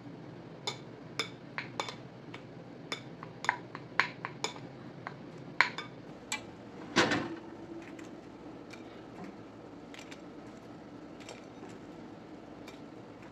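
Plastic rice paddle clicking and tapping against a ceramic bowl while stirring rice, in a quick irregular series, then a louder clatter about seven seconds in. Only a few light clinks follow, over a faint steady hum.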